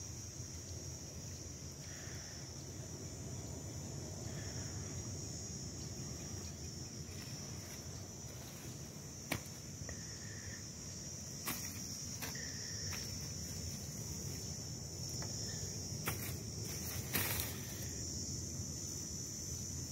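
Steady high-pitched chirring of insects, with a low rumble underneath. A few sharp taps and rustles come in the second half.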